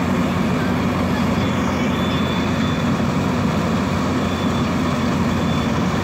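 Compact rice combine harvester running steadily as it cuts and threshes standing rice: an even engine drone with the rattle of the machinery.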